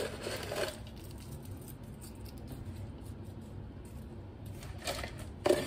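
Crispy fried onions rustling and rattling as they are shaken out of their container onto a casserole. It comes briefly at the start and again near the end, with a quieter stretch between.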